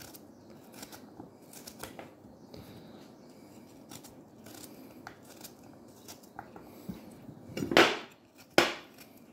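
Knife slicing raw potato held in the hand: faint small cuts and clicks as pieces drop onto a wooden cutting board. Two louder sudden sounds come near the end.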